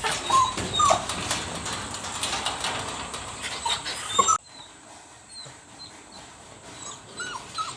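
Beagle puppies whining and yipping, with scuffling and clicks as they move about. The sound drops off abruptly about four seconds in, leaving fainter whines.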